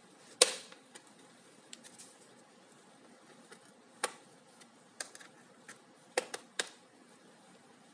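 Scattered sharp clicks and taps from a plastic laptop case and small tools being handled. There is one loud click about half a second in, lighter clicks after it, and three quick clicks near the end.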